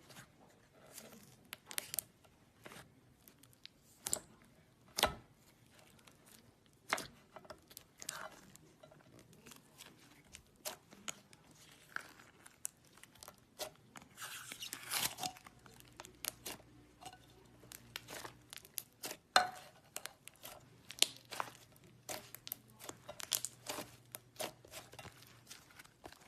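Slime being squeezed and poked by hand, giving irregular sharp crackles and pops from air pockets. There is a denser run of crackling about halfway through.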